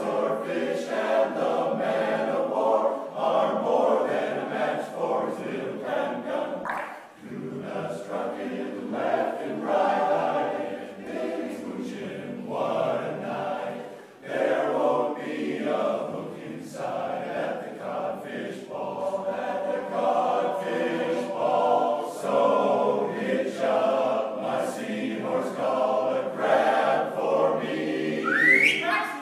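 Barbershop men's chorus singing a cappella in close four-part harmony, with short breaks between phrases about seven and fourteen seconds in. Near the end a short high sound rises sharply in pitch over the chords.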